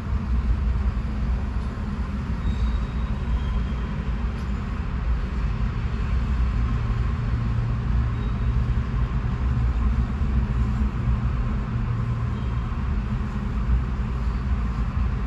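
Freight train of tank cars rolling steadily past: a continuous low rumble of steel wheels on rail, with a few faint clicks, heard from inside a car cabin while its engine idles to run the air conditioning.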